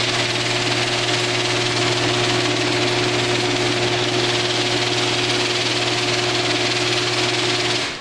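A Genie screw-drive garage door opener running as it raises the door: a ridiculously loud, steady mechanical drone at one constant pitch with a hiss over it. It cuts off shortly before the end as the door stops.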